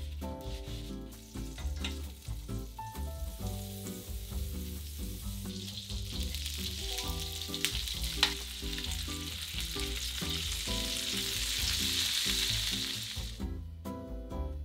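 Sea bream fillets sizzling as they fry in oil in a nonstick frying pan; the sizzle is faint at first, grows loud about a third of the way in, and cuts off shortly before the end.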